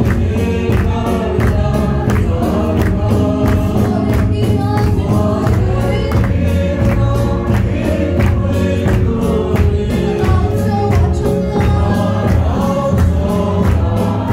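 Congregation singing a gospel hymn together over a steady beat and heavy bass from the amplified accompaniment.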